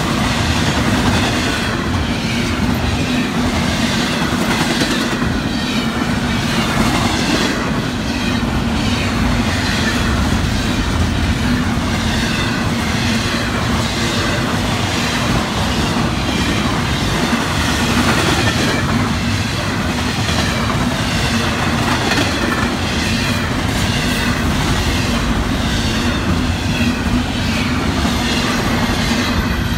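Florida East Coast Railway intermodal freight cars, double-stack container cars and trailer flatcars, rolling steadily past, the wheels rumbling and clacking on the rails.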